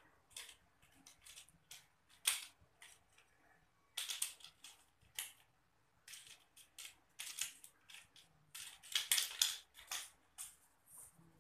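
Kittens batting a small plastic toy car across ceramic floor tiles: irregular clicks, clatters and scrapes of the toy and claws on the tiles. The clicks come in bursts, the loudest about two seconds in and near the end.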